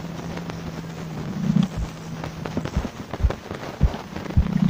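Muffled underwater audio from a phone sealed in a waterproof cover beneath a small RC boat. A steady low hum stops about halfway through, and a run of deep, irregular thumps and knocks follows as water moves the cover.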